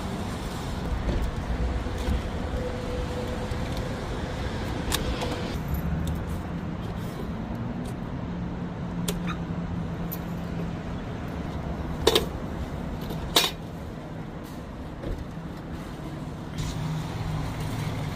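Collapsible folding hand cart being folded up, its plastic and metal frame clicking and knocking as the joints fold, with two sharp clicks a little over a second apart past the middle. Behind it is steady parking-lot traffic noise and a low vehicle hum.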